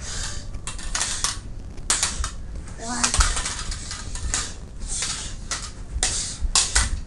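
A rapid, irregular run of sharp clacks and hits, about two or three a second.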